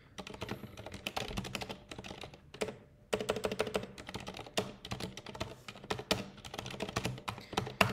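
Typing on a computer keyboard: quick runs of key clicks, with a brief pause about three seconds in.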